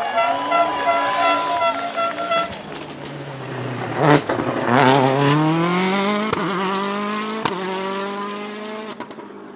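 Rally car engine pulling hard, its pitch climbing steadily for about three seconds and then holding and fading. Sharp exhaust cracks come roughly once a second, the loudest about four seconds in.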